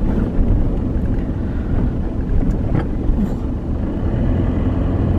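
Steady low rumble of engine and road noise inside a moving car's cabin, with a few faint clicks.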